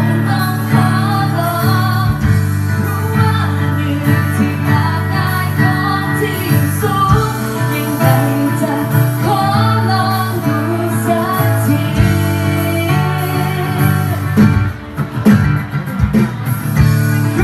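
A woman singing live into a microphone with acoustic guitar accompaniment, amplified through PA speakers.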